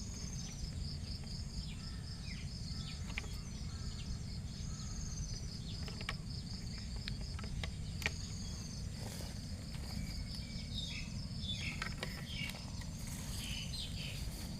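Insects trilling in a steady, rapidly pulsing high chorus over a low rumble, with a few scattered clicks, one sharper about halfway through, and some short chirps near the end.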